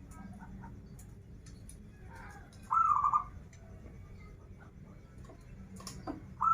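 Zebra dove (perkutut) cooing: one short phrase about three seconds in, a rising note followed by a few quick pulsing coos, and the next phrase starting at the very end.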